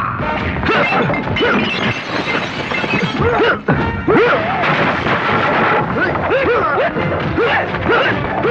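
Fight-scene soundtrack: background music with repeated punch, whack and crash sound effects. After a brief drop about four seconds in there is a particularly loud hit.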